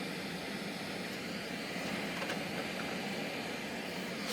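Samsung PCD 720 boombox on FM radio giving out a steady hiss of static through its speaker, off-station with no broadcast coming through.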